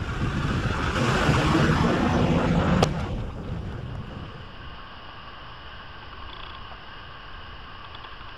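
Wind buffeting the microphone outdoors, a loud rumbling rush that ends with a sharp click about three seconds in. After that there is only a quiet, steady background hiss.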